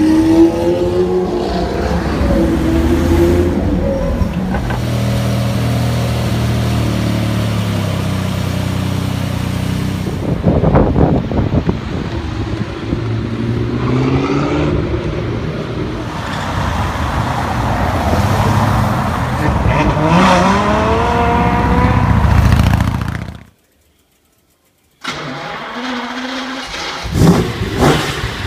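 Supercar engines revving and accelerating hard, one car after another, the pitch climbing through the gears several times, with a burst of sharp cracks about ten seconds in. Near the end the sound cuts out for about a second and a half, then a different engine runs at idle with a few sharp throttle blips.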